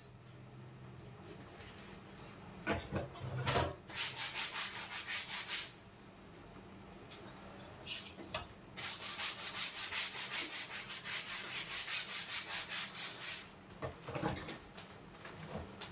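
Dishes being scrubbed with a sponge at a sink: quick back-and-forth rubbing strokes, about four a second, in two spells, with a few knocks of dishware in between.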